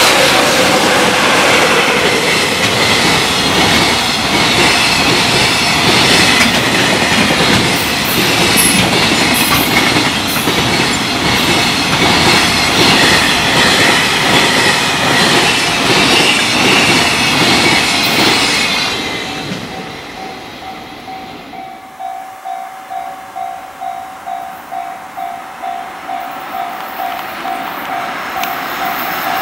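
Long freight train passing at speed over a level crossing, its wagons' wheels rushing and clattering loudly, fading out about 19 seconds in. Then the crossing's warning bell is left ringing, an even electronic ding about twice a second.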